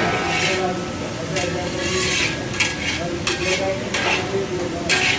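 Long-handled metal spatula scraping and turning shredded cabbage and carrot in a large wok, about one scrape stroke a second, over a steady sizzle of the vegetables frying.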